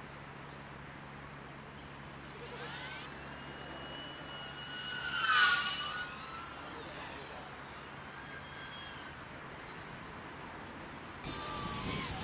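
Small FPV quadcopter's electric motors and propellers whining in flight, the pitch gliding up and down with throttle changes. The whine is loudest about five seconds in.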